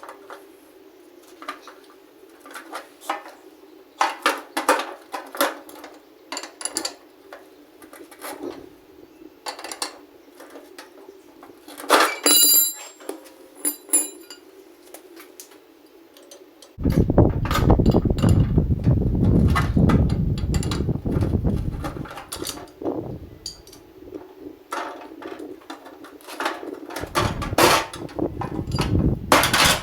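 Hand tools and metal parts clinking, tapping and knocking while glad hand air couplings are worked on, with a quick run of bright metallic ticks about twelve seconds in. A low rumbling noise comes in for several seconds past the middle and again near the end.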